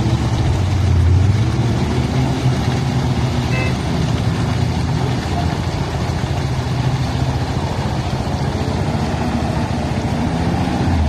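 Engine of a Hägglunds articulated tracked carrier running steadily under load as it drives through deep mud, its pitch wavering slightly. It is loudest in the first second or so.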